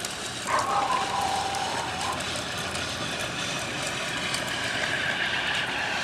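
Plastic wheels of a toy dump truck rolling and rattling along a concrete sidewalk as it is pushed. A drawn-out high-pitched call sounds over it about half a second in, lasting about a second and a half.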